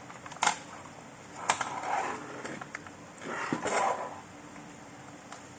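Handling noises from parts of a robot vacuum being worked on: two sharp clicks, about half a second and a second and a half in, each followed by scraping and rustling, then a second stretch of scraping with a knock in the middle.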